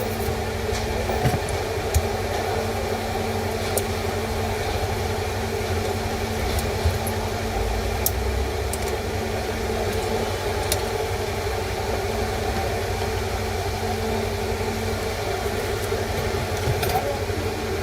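Steady low mechanical hum and rumble, with a few faint clicks scattered through it.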